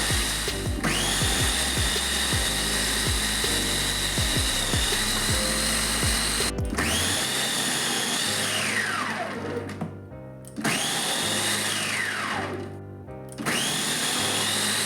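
Kenwood Chef kitchen machine motor driving the food processor attachment, shredding carrots with a high steady whine. It is stopped and restarted several times, and each time the whine falls in pitch as the motor winds down. It runs consistently, a sign that the repaired connector is now working.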